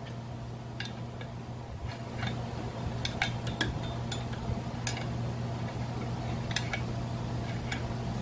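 Irregular light metallic clicks and taps of a hand tool working on a brush cutter engine during disassembly, over a steady low hum.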